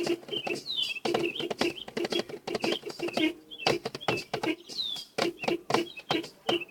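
A drum played in quick, uneven runs of sharp strikes, each hit with a short pitched ring. Twice, a high falling chirp sounds over the drumming.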